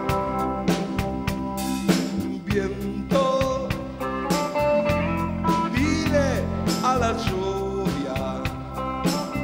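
Rock band playing live: held Hammond-style organ chords over a steady drum-kit beat, with the bass filling in the low end from about halfway and a few sliding notes in the middle. This is the instrumental intro, before the vocal comes in.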